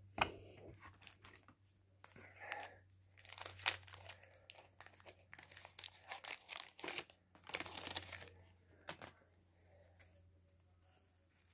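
Wax-paper wrapper of a 1989 Fleer baseball card wax pack being torn open and crinkled: a run of short, irregular tearing and rustling sounds that dies away about nine seconds in.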